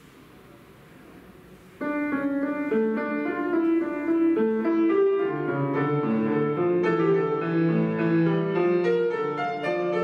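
Grand piano, an Estonia: quiet room tone, then about two seconds in a piece starts and runs on in a steady stream of classical piano notes.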